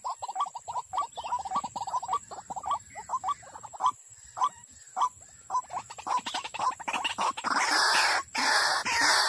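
White-breasted waterhen calling: a fast run of short, repeated notes that thins out to scattered single notes midway. In the last couple of seconds it gives way to louder, harsher, continuous calling.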